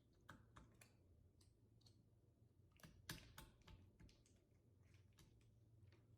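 Faint, irregular sticky clicks and small pops of slime being squeezed and stretched by hand, with a brief cluster of louder clicks about three seconds in.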